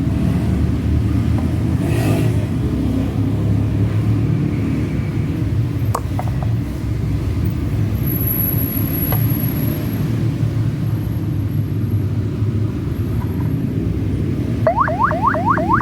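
A steady low rumble, then near the end a CJB 200-watt electronic siren starts up, sweeping rapidly upward in pitch about four times a second.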